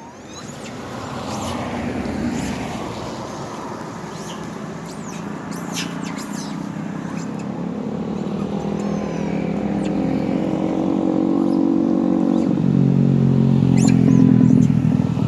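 A motor vehicle's engine running and growing steadily louder as it approaches, loudest near the end. A few short high chirps are heard about five to six seconds in.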